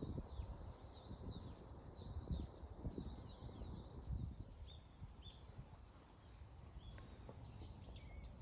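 A small bird singing a quick run of repeated rising-and-falling notes, which breaks after about four seconds into scattered short chirps. A faint, uneven low rumble lies under the song.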